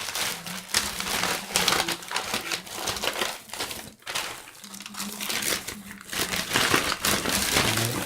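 Packaging crinkling and rustling by hand in a dense run of irregular crackles as a boxed condenser microphone is unpacked.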